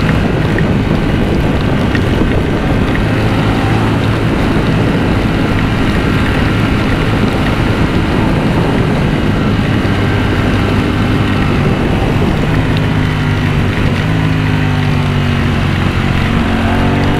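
Ducati V4 motorcycle engine running at a steady cruise under heavy wind rush on the microphone. Near the end the engine note climbs as the bike accelerates.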